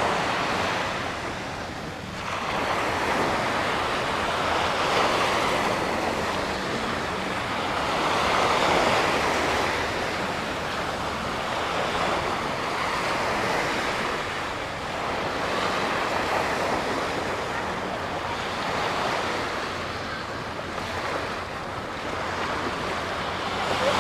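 Small waves breaking and washing up on a sandy beach: a steady rush of surf that swells and eases every few seconds.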